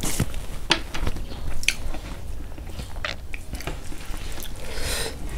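Close-miked chewing of a mouthful of pork and rice, with several sharp, wet mouth clicks and smacks.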